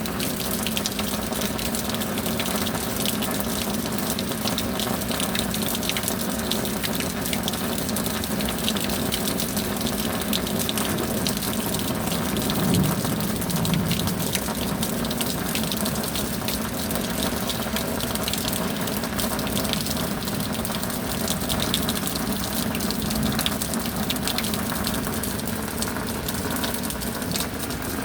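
Steady heavy rain with a constant gush of running water, scattered with fine drop ticks.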